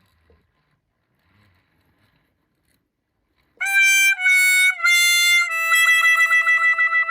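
Near silence, then about three and a half seconds in a loud, reedy, horn-like tone: three short notes each a little lower than the last, then a longer held note that wavers about six times a second.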